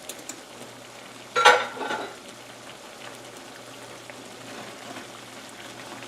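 Patties and onions sizzling steadily in beef broth in a frying pan, with one brief, louder clatter about a second and a half in.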